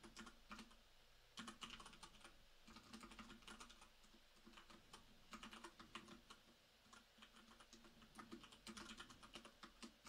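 Faint typing on a computer keyboard: runs of quick key clicks with short pauses between them.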